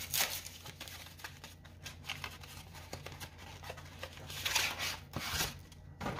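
MRE entrée's paperboard carton being opened and the foil retort pouch slid out of it: cardboard scraping, tearing and rustling in short bursts, the loudest between about four and a half and five and a half seconds in.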